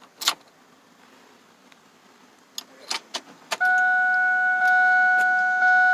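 A click, then keys rattling with a few more clicks, then about three and a half seconds in the 1999 Ford F250's cab warning chime comes on: a steady electronic tone that pulses about once a second. The engine is not yet running.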